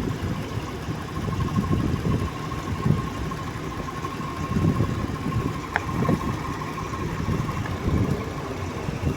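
2022 Jeep Grand Cherokee idling with its air conditioning running during a refrigerant recharge: an uneven low rumble with a steady thin whine, and a single click about six seconds in.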